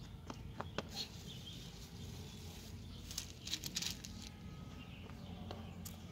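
Quiet outdoor background with scattered sharp taps and clicks, a few just after the start and a quick cluster of them about three to four seconds in.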